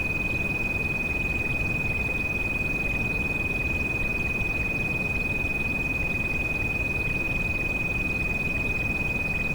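A steady high-pitched pure tone, a tinnitus-therapy frequency, held without change over a constant rain noise with a deep rumble underneath.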